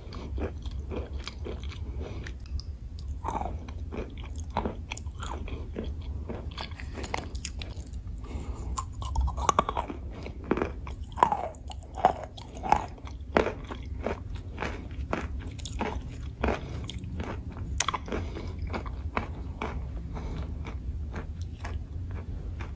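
Close-up crunching of chalk being bitten and chewed, a dense run of sharp brittle crunches with the loudest bites about halfway through.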